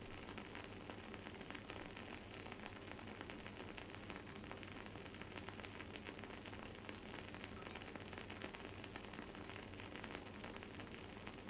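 Wooden candle wick crackling as it burns: a faint, dense, steady stream of tiny crackles and sizzles.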